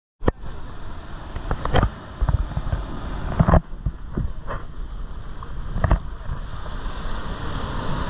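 Surf washing in over a sandy beach, with wind buffeting the microphone and a few sudden louder thumps in the first six seconds. A wave breaks close by near the end.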